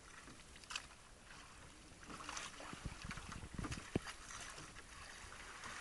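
Sea water washing and sloshing against an outrigger boat's hull and float, with a few soft knocks a little past halfway through.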